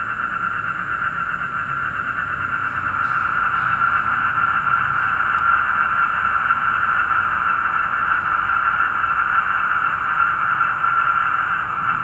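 A dense, continuous night chorus of black-spectacled toads (Asian common toads) calling together in a swamp, with a faint high cricket trill above it and a low hum underneath.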